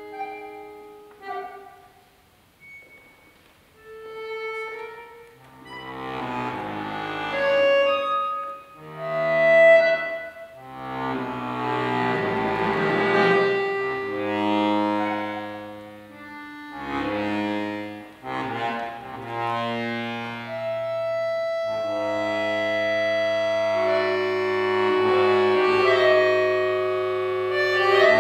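Two button accordions playing a contemporary classical duo: a few sparse high held notes at first, then from about five seconds in, full sustained chords over low bass notes that swell and fade. Near the end the chords are held long and grow a little louder.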